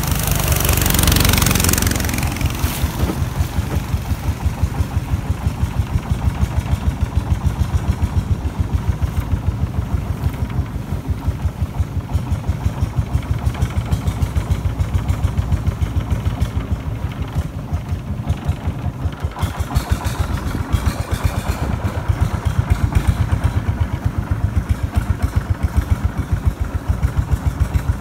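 Long-tail boat's engine running steadily with an even chugging beat, heard from on board. A loud rushing noise is laid over it for the first two seconds.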